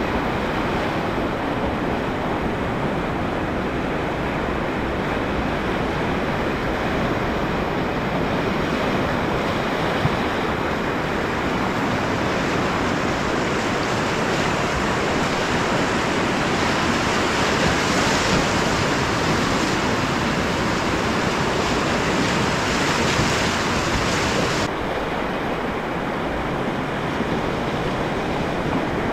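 Whitewater rapids rushing steadily around an open canoe. The rush grows brighter and louder through the middle as the boat runs through breaking waves, then drops suddenly about three-quarters of the way through.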